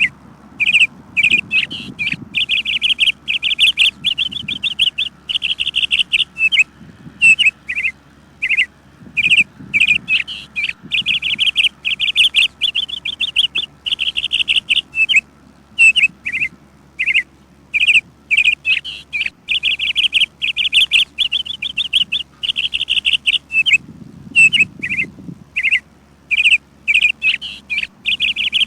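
Birds chirping: short chirps and rapid trilled phrases, one after another with only brief gaps.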